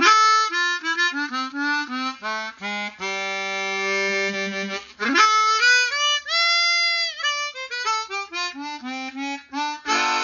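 Easttop EAP 16 chromatic harmonica played with a juicy, fat tone. It plays a stepwise run of single notes down to a long held low note, then a quick run up to a held high note and a stepwise run back down, ending on a chord.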